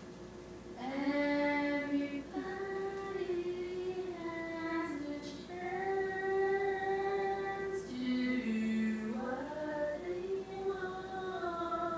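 A high voice in long, held, wordless notes, about six of them, some sliding from one pitch to the next, starting about a second in.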